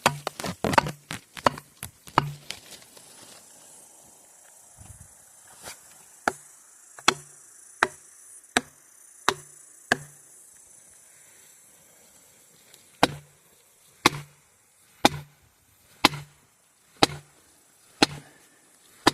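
Felling wedges being driven into the back cut of a redwood by repeated hammer blows, each a sharp crack with a dull thud under it. The strikes come in three runs, a few at the start, about seven a little faster than one a second in the middle, and about six at one a second near the end.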